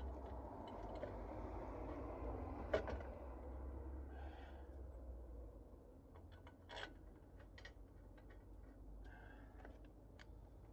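Faint handling of tools and parts: scattered small metal clicks and a sharper knock about three seconds in, as the hub assembly's bolts are put back in by hand, over a steady low hum.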